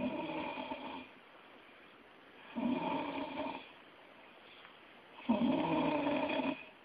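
Snoring: three drawn-out snores, each about a second long, coming roughly every two and a half seconds with quiet breaths between.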